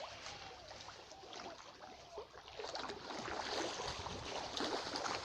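Fish feed scattered onto a pond: a faint spattering on the water that grows denser about halfway through, with fish stirring at the surface.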